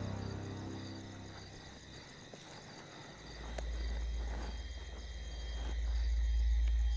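Crickets chirring steadily. A deep low rumble comes in about three seconds in and swells toward the end.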